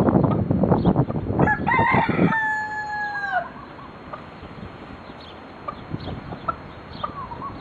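A loud rough noise for the first two seconds, then a rooster crows once, a long call whose held note falls away at the end. After it only a few faint short chirps.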